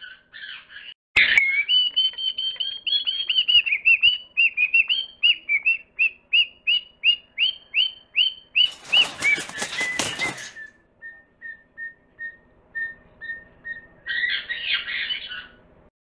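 A bird whistling a long series of loud, clear notes, about three a second, each bending in pitch. About halfway through, a loud rustling burst of about two seconds cuts in. Softer, lower whistled notes follow, and a short chattering call comes near the end.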